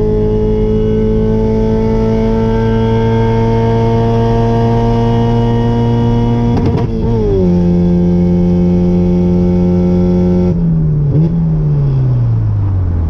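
Car engine pulling under acceleration, its pitch climbing slowly, then dropping sharply at a gear change about two-thirds of the way in. It holds there briefly, then falls steadily as the throttle is lifted.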